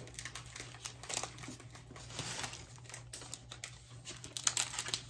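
Foil Pokémon booster pack wrapper crinkling and crackling as it is picked up and handled, with many light clicks, busiest about two seconds in and again near the end.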